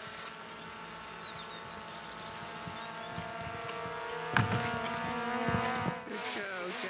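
Camera drone's motors and propellers buzzing as it hovers: a steady hum of several tones that shifts in pitch near the end. There is a single knock about four and a half seconds in.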